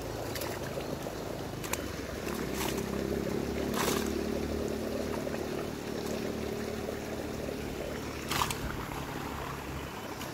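Shallow muddy water sloshing and splashing as a man wades through a draining fish pond and dips a bamboo hoop net, with a few short sharp splashes. A steady low hum comes in about two seconds in and fades out near the eight-second mark.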